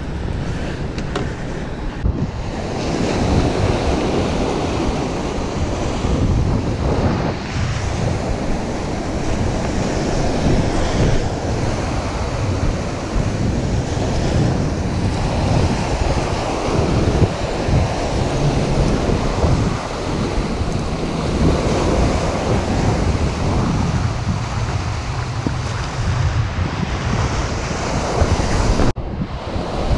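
Small sea waves breaking and washing up on a sandy shore, with wind buffeting the microphone throughout.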